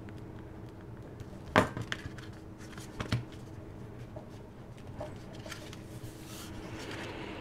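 Cardstock and paper being handled on a craft cutting mat: a few sharp taps, the loudest about a second and a half in and another about three seconds in, then a soft paper rustle near the end.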